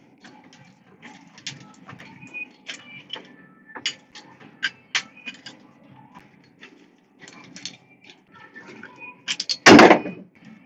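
Copper refrigeration tubing and fittings clicking and tapping against each other as they are handled and fitted together, over a low steady hum. One loud knock near the end.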